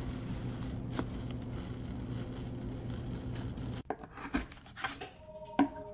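A woodcarving tool scraping and rubbing on a woodblock, with a few sharp clicks, over a low steady hum. A few held musical notes come in near the end.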